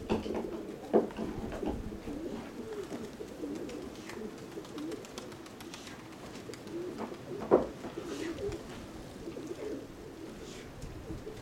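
Domestic pigeons, Nikolaev breed, cooing continuously in low wavering rolls. A sharp knock sounds about a second in, and a louder one past the middle.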